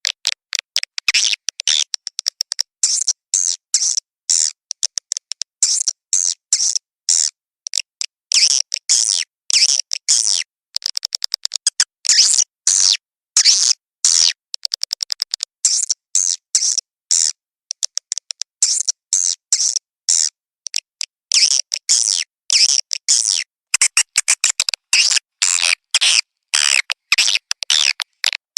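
Swiftlet lure call: a recording of swiftlets' rapid high chirps and twittering, broken by quick runs of clicks with short gaps between calls. It is the kind of recording played in swiftlet nest houses to draw birds in, here a mix billed as a mating call.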